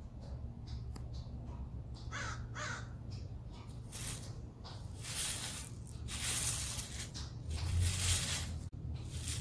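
Ice cubes clattering and crunching in repeated bursts from about four seconds in as a husky puppy digs in a pile of them. Two short calls about two seconds in.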